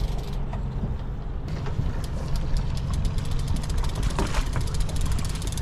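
Boat engine idling with a steady low hum, over the rapid clicking of a fishing reel as a hooked chinook salmon is reeled in.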